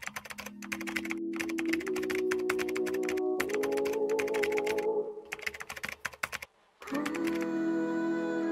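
Rapid keyboard typing clicks in quick runs with short pauses, over soft music with held notes. The typing stops about six seconds in; after a brief silence the music comes back with sustained notes.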